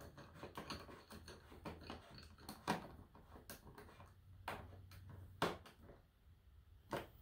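Irregular light clicks and a few louder knocks from the plastic parts of a pressure washer being handled and fitted together during assembly.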